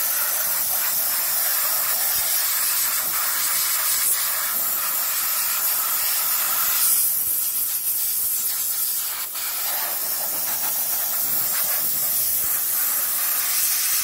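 Compressed-air blow gun hissing in a long, steady blast as it blows packed dust and lint out of the coil fins of a rooftop RV air conditioner.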